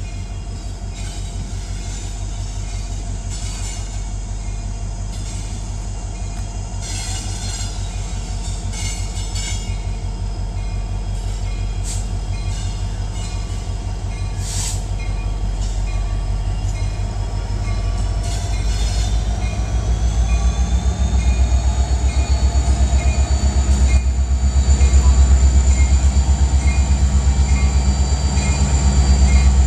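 Union Pacific EMD SD70M diesel-electric locomotives of a freight train approaching and passing close by: a deep, steady engine rumble that grows louder throughout. About two-thirds in, a high whine rises in pitch and then holds.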